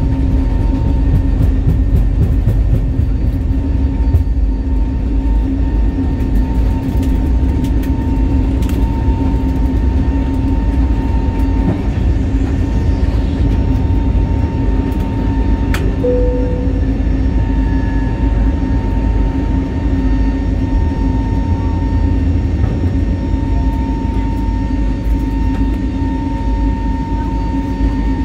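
Steady cabin noise inside an Airbus A320neo airliner: a low rumble with a constant engine hum, even in level throughout.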